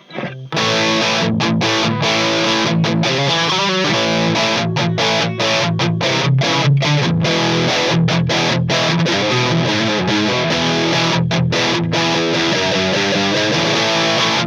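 Distorted electric guitar played through a miked amp, in chords cut off by many brief stops. It starts about half a second in, just after a click.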